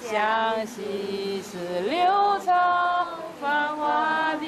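Buddhist devotional song: a single voice singing long, drawn-out notes that slide slowly from one pitch to the next.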